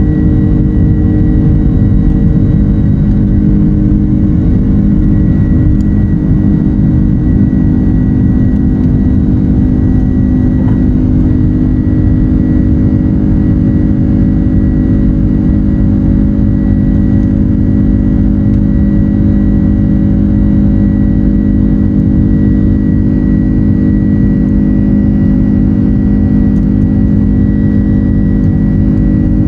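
Loud, steady cabin noise of an airliner's turbofan jet engines at takeoff power during the initial climb, heard from a seat beside the wing engine: a deep drone with several steady hums and a thin high whine.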